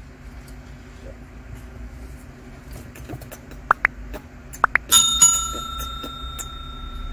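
Subscribe-button animation sound effect: two quick double clicks, then a bright bell ding that rings on for about two and a half seconds.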